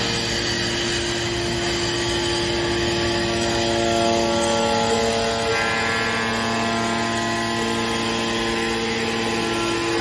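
Hydraulic power unit of a scrap metal baler running: the electric motor and hydraulic pump give a loud, steady hum with a whine that turns a little harsher about halfway in.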